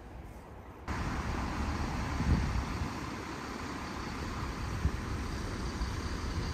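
Steady rushing of a shallow river over rapids, starting abruptly about a second in, with low gusts of wind buffeting the microphone.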